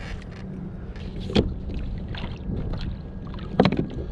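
Two sharp knocks about two seconds apart, over a steady low rumble of wind and water around a kayak.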